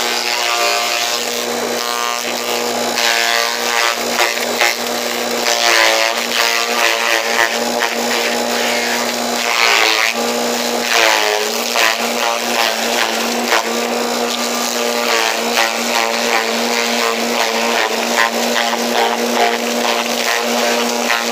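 Forage chopper running steadily while shredding whole corn stalks, with a constant motor hum and a rushing spray of chopped material. Its pitch dips briefly a few times as stalks go through the blades.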